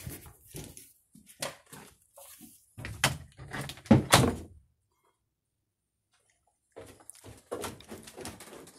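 Footsteps with scattered knocks and thuds, the loudest about three and four seconds in. The sound drops out to dead silence for about two seconds midway, then the knocks resume.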